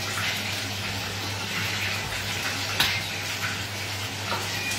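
Steady sizzle of breaded chicken frying in hot oil in a pan, over a low steady hum. Just past the middle, one sharp click of a knife against the wooden cutting board.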